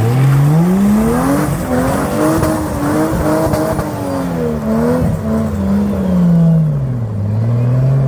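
Four-wheel drive's engine revving hard on a climb up a slippery rocky track. The revs rise over about two seconds, hold with small wobbles, and fall back near the end.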